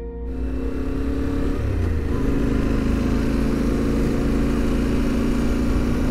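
Yamaha Ténéré 700's parallel-twin engine running at road speed, heard from the rider's position with wind rushing past. The engine note climbs over the first couple of seconds, then holds steady.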